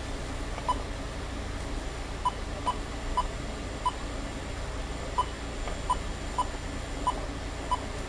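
Bosch alarm touchscreen keypad giving a short beep at each key tap, about ten beeps at uneven spacing as a passcode and menu keys are pressed, over a steady low hum.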